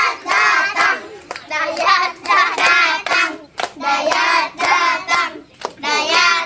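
A group of children singing a chant together in high voices, in short repeated phrases, while clapping their hands.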